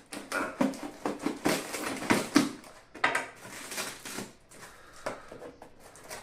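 Cardboard parcel box being handled and turned over, giving irregular scrapes, rubs and knocks, loudest about two seconds in.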